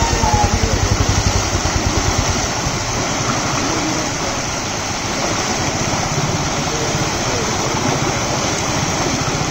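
Heavy floodwater rushing across a road in a fast, churning torrent: a steady, even rush. A low, even throbbing sits under it for the first two seconds or so, then fades.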